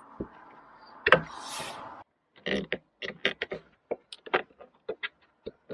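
Plastic car interior trim being handled and pushed back into place: a sharp knock about a second in, then a run of short, irregular clicks and taps.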